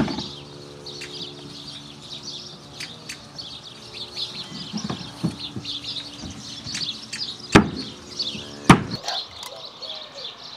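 Birds chirping throughout over a steady low hum, with two sharp knocks about seven and a half and nine seconds in.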